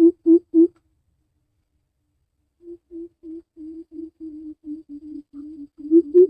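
Greater coucal giving its deep, evenly paced 'coop-coop-coop' hoots, about three a second. The first series ends within the first second. After a pause of about two seconds a softer run of the same low notes begins and swells back into loud hoots near the end.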